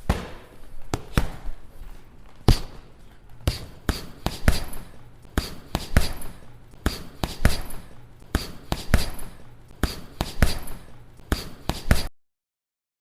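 Boxing punches landing: a long run of sharp impact hits, irregular at roughly one to two a second with some quick doubles, then an abrupt cut to dead silence near the end.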